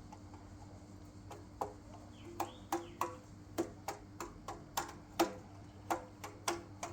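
A series of sharp taps or knocks, irregular at first and coming faster toward the end, each with a brief ring.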